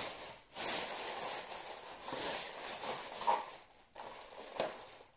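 Thin plastic carrier bag rustling and crinkling in bursts as hands rummage in it to unpack takeaway food.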